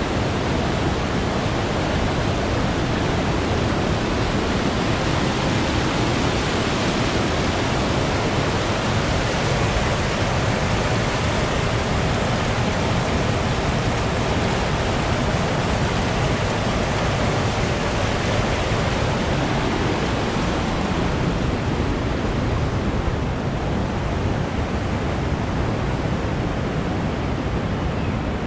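Loud, steady rush of white water from a waterfall or rapids.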